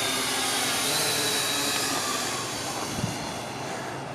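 Small quadcopter drone's motors and propellers whining, a steady buzz of many layered tones that grows a little fainter in the second half.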